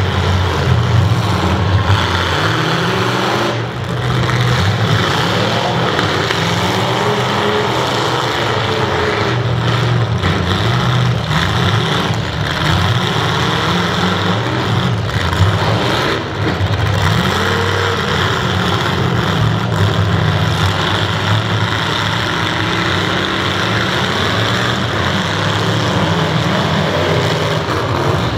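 Several demolition derby cars' engines running and revving together, their pitches rising and falling, with a few sharp bangs of cars colliding.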